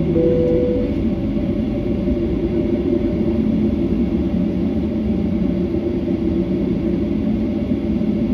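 Airliner jet engines running steadily at taxi power, heard inside the cabin as a low steady rumble with several held engine tones. A brief steady tone sounds just after the start.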